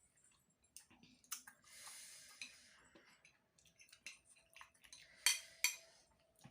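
Light clicks and clinks of cutlery against a plate or bowl while someone eats spicy noodles, with a soft breathy noise about two seconds in and two sharper clinks near the end.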